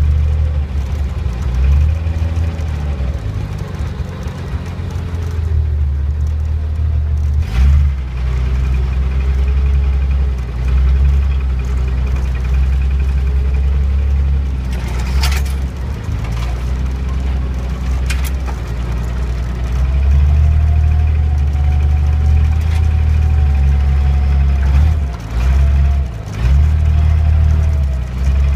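1991 Jeep Cherokee XJ's 4.0-litre High Output straight-six running at low speed, a steady low drone that swells and dips with the throttle. Three sharp knocks cut through it, about a quarter of the way in, just past halfway and about two-thirds through.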